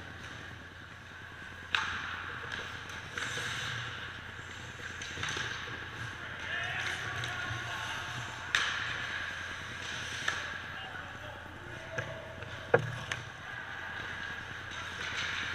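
Ice hockey play in a rink: skate blades scraping across the ice, with a few sharp clacks of sticks and puck, the loudest about thirteen seconds in.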